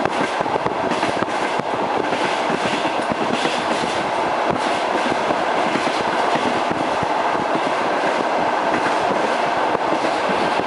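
Train wheels clattering over the rail joints as railway carriages run at speed, a continuous dense clickety-clack.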